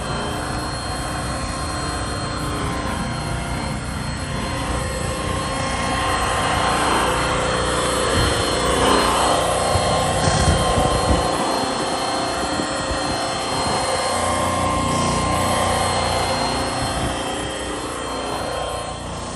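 Milwaukee Fuel cordless polisher running with a foam pad against an aluminum truck wheel: a steady whirring motor hum that swells toward the middle and eases off near the end.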